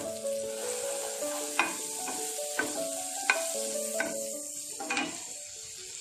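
Butter melting and sizzling in a hot stainless steel frying pan, stirred with a spatula that knocks against the pan about five times.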